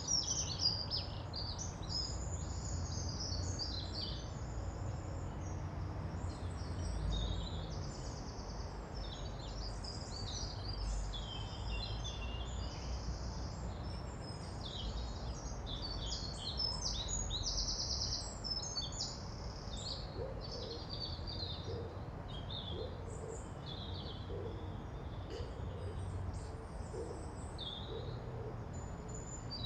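Several songbirds singing at once, a dense mix of high chirps and trills, over a steady low rumble. From about two-thirds of the way through, a lower short call repeats roughly once a second.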